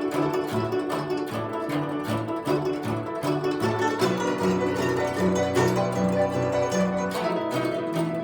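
Solo guzheng playing, rapid plucked notes over a shifting bass line.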